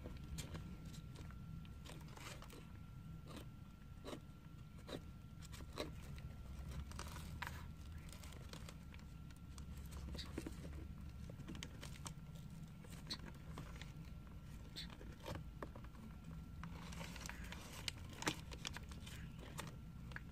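Sulcata tortoises biting into a piece of raw carrot: irregular sharp crunches, with newspaper crinkling as they shuffle their feet and shells on it.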